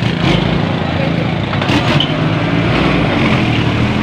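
Road traffic: motor vehicle engines running close by, with a steady low hum and road noise.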